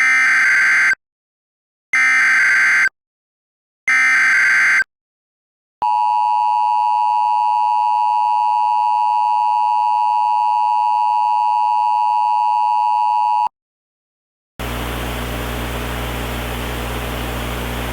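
Emergency Alert System tornado warning opening: three one-second bursts of the buzzing SAME digital header, then the steady two-tone EAS attention signal held for about eight seconds. After a second of silence, a steady hiss with a low hum comes in.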